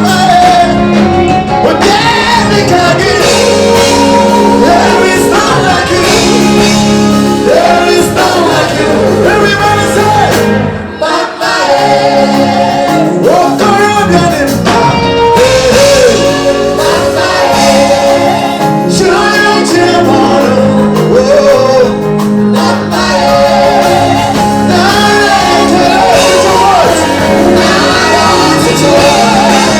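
Live gospel music: a singer backed by a band, loud and steady, with a brief drop about eleven seconds in.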